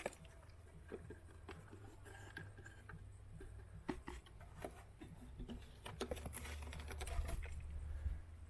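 Stones on a shore clicking and clattering against each other in many scattered, irregular ticks, over a low rumble that grows louder about six seconds in.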